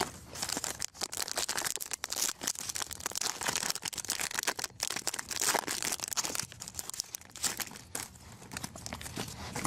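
Plastic wrapper of a trading card pack being torn open and crinkled by hand: a dense, continuous run of crackles and rustles.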